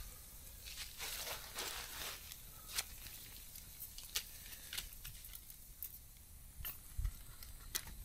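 Wood campfire crackling, with single sharp pops every second or so. A short stretch of rustling and crinkling comes about a second in.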